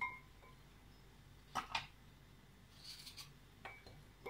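Faint handling sounds of milk-soaked finger biscuits being dipped in a glass bowl and laid in a glass baking dish: a brief glassy clink at the start, two light clicks about a second and a half in, and a few softer taps and rustles.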